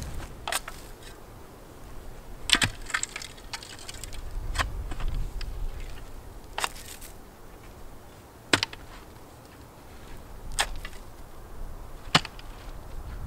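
A long-handled steel digging spade jabbed down into the bottom of an augered post hole again and again, cleaning out loose soil: about seven sharp, short strikes, roughly one every two seconds.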